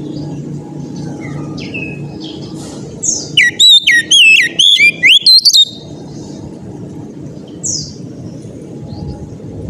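Oriental magpie-robin singing: a loud burst of rapid, sweeping whistled notes about three seconds in, lasting around two and a half seconds. Soft chirps come before and after it, over a low steady hum.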